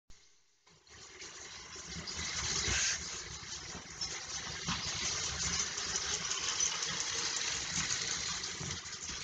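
Toy train running on its track: a steady whirring rattle that grows louder over the first few seconds.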